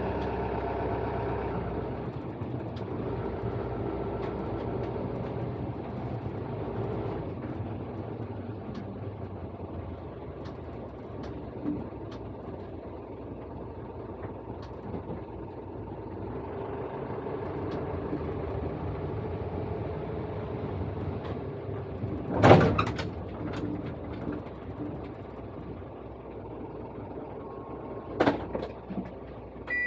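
Cabin noise of a dual-mode vehicle, a microbus converted to run on both road and rail, driving slowly in bus mode: a steady engine and road hum. Two sharp knocks break through, one about three quarters of the way in and one near the end.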